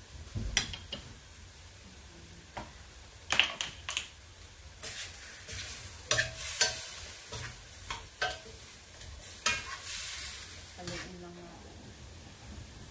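Chicken frying in a pan, stirred with a cooking utensil: a steady sizzle with irregular knocks and scrapes of the utensil against the pan every second or two.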